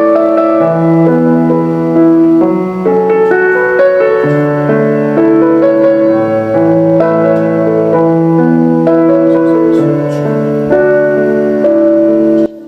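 Background music: a calm piano piece with sustained chords, cutting off just before the end.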